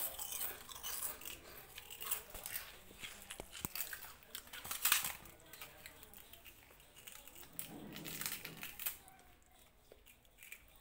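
Kittens crunching and chewing pieces of Kurkure, a crisp corn-puff snack: a run of small crisp crunches, densest in the first five seconds and sparser after.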